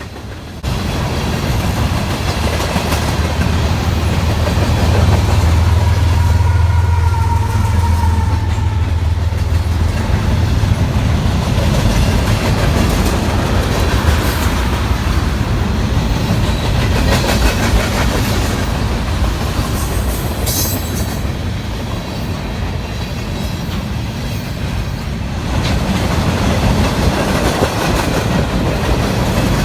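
Long mixed freight train rolling past: a mid-train GE ES44AC diesel locomotive, working as a distributed power unit, drones by in the first ten seconds. Then freight cars clatter over the rail joints, with a few brief high wheel squeals about two-thirds of the way through.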